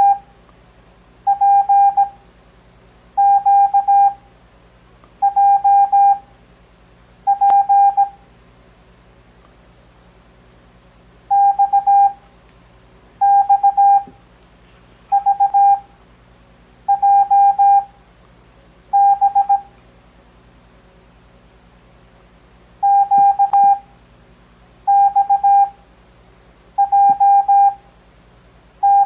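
Morse code (CW) practice tone: a steady mid-pitched beep keyed into single characters sent at 17 words per minute with Farnsworth spacing at 6 words per minute. Characters come about two seconds apart, in groups of five with longer pauses between groups.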